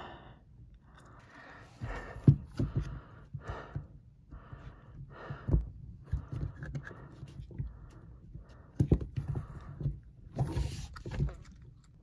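Irregular plastic clicks, knocks and rustling from hands handling a Whirlpool dishwasher's drain pump housing and corrugated drain hose, with a short hissing rustle about ten and a half seconds in.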